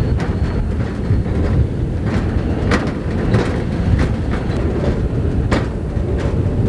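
Hi-rail truck running along railway track: a steady low rumble of engine and rail wheels, with frequent sharp, irregularly spaced clicks.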